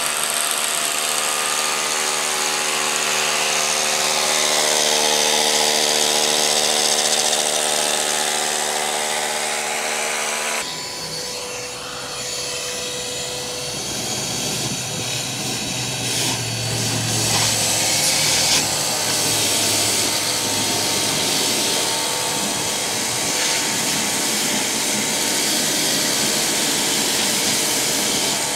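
Electric drill boring anchor holes into the concrete shop floor, running continuously. Its sound turns rougher and less even about ten seconds in.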